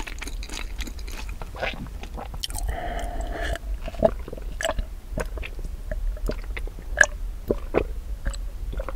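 Close-miked mouth sounds of chewing bread, as a series of short wet clicks, then swallows as milk is drunk from a glass.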